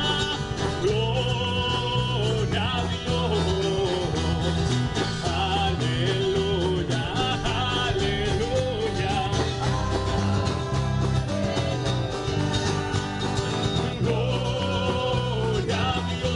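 Live worship band playing a Spanish-language praise song: a voice singing over amplified electric guitar and a drum kit.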